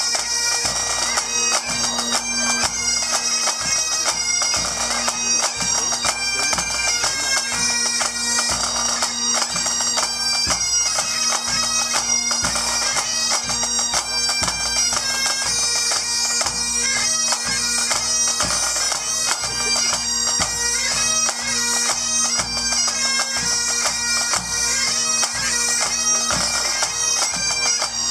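Pipe band playing: bagpipes sounding a melody over steady, unbroken drones, with snare drums and a bass drum beating time.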